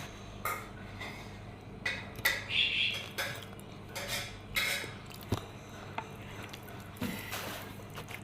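Eating noodles with chopsticks from a bowl: sharp clicks of the chopsticks against the bowl, between short noisy eating sounds that come at irregular intervals.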